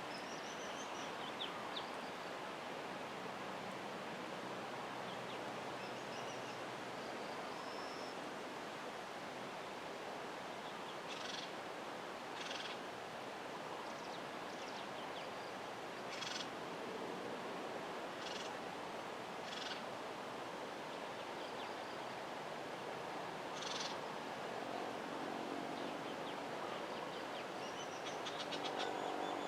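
Outdoor ambience with a steady hiss, thin high bird chirps, a handful of short sharp rustles or snaps in the middle, and a low pulsing animal call near the end.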